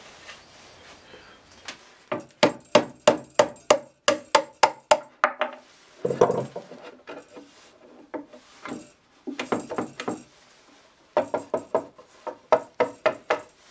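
Wood being knocked: light, sharp taps on the wooden toolbox parts in short runs of about three a second, with brief pauses between the runs.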